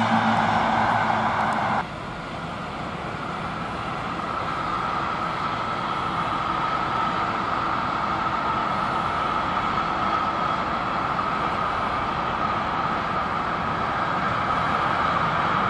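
Container freight train headed by two locomotives passing, a steady rumbling rush of wheels and wagons that slowly builds, with a held high ringing tone in it. The louder sound of another passing train cuts off abruptly about two seconds in.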